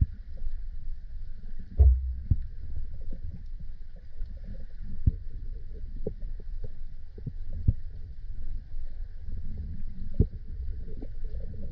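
Underwater sound picked up through a camera housing: a low, muffled rumble of water moving, with scattered sharp clicks and knocks, the loudest about two seconds in.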